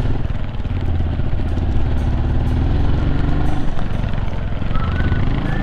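Single-cylinder four-stroke trail bike engine running steadily as the bike is ridden along.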